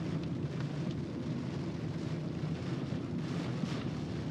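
Steady low rumble of a car driving on a wet road in rain, heard from inside, with a hiss of tyre spray and rain over it.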